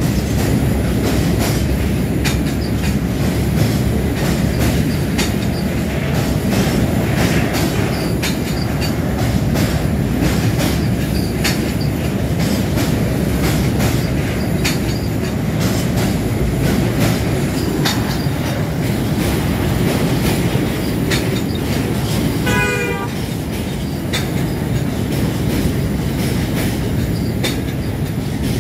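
Freight train of empty tank wagons rolling past across a railway bridge: a steady rumble with repeated clicks of the wheels over the rail joints. About two-thirds of the way through there is a brief rapid rattle.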